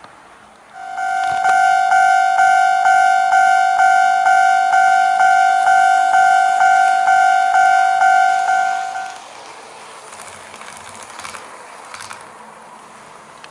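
Model railway level crossing's electronic warning bell ringing in a steady Japanese-style 'kan-kan' rhythm, about two strikes a second, then stopping about nine seconds in. Fainter rolling and clicking of the HO-scale train's wheels over the track follows.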